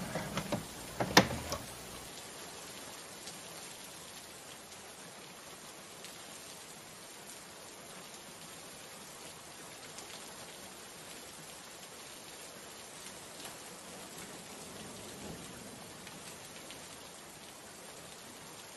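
Steady rain, an even hiss with faint patters, after a few sharp knocks in the first second or so, the loudest about a second in.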